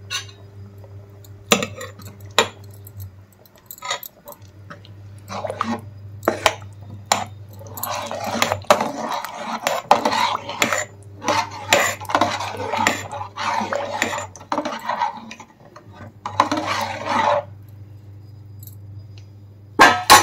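A metal ladle stirring in a pot of dal, scraping and clinking against the pot's sides in bursts, with a few single knocks in the first seconds.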